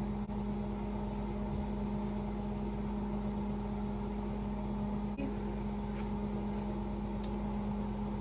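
Steady hum of a small electric motor with a low, even tone, with a few faint clicks.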